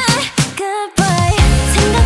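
Pop music with a singing voice over a beat. About half a second in, the bass and drums drop out briefly under a held note, then come back in heavily about a second in.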